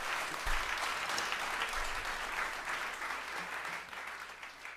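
Audience applauding at the end of a rock song, fading out near the end, with a single low thump about half a second in.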